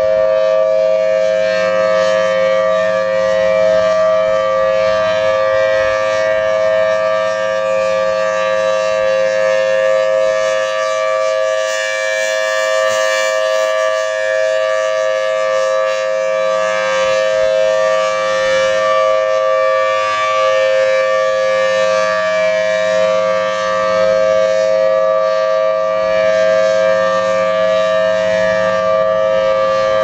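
Federal Signal 1000T outdoor warning siren sounding the steady alert signal of a weekly test: a loud continuous tone held at one pitch. Its loudness swells and dips slightly as the rotating head turns.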